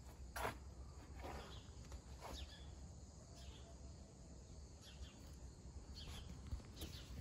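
Quiet backyard ambience: a steady low rumble with short, sharp sounds every second or so, loudest just after the start.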